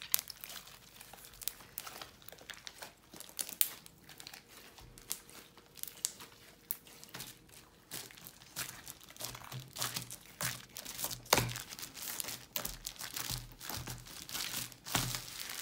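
Homemade slime squeezed and kneaded by hand, giving a dense, irregular run of wet clicks, pops and crackles, with the plastic sheet under it crinkling as the slime is pressed into it.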